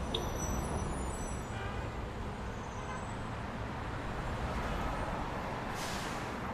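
Steady hum of distant city road traffic. A rush of hiss comes up near the end.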